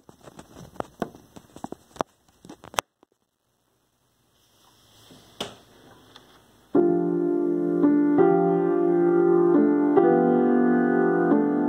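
A run of sharp clicks and knocks over the first few seconds, then a pause. Piano playing begins about seven seconds in with loud, sustained chords.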